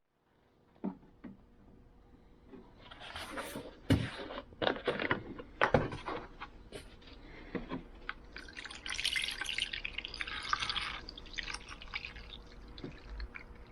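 Pliers knocking against a container of rust remover, with liquid splashing and pouring in short spells and one longer pour-like spell past the middle.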